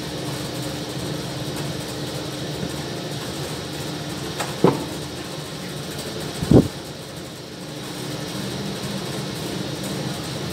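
Steady machine hum, like a fan, with two sharp knocks about four and a half and six and a half seconds in, the second the louder.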